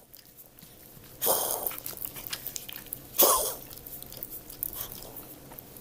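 A pet coughing: two harsh coughs about two seconds apart, with faint small sounds between.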